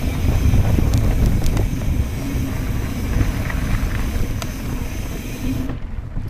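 Wind buffeting the microphone over a steady low rumble from riding a mountain bike down a dirt trail, with scattered clicks and rattles. The hiss drops away abruptly near the end.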